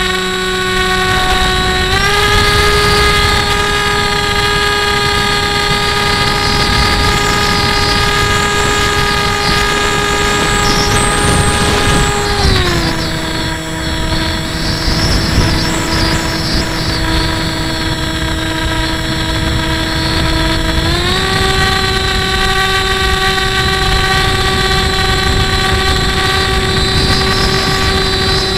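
Electric motor and propeller of a Hobbyking Breeze FPV model plane in flight, heard from its onboard camera as a steady whine over wind rush. The whine drops in pitch about twelve seconds in as the throttle is eased, then climbs back about twenty-one seconds in.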